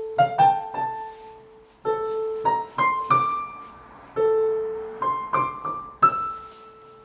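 A child playing a slow melody on a piano, one note at a time, each note struck and left to ring and fade. The same low note comes back every two or three seconds, with a few higher notes climbing between.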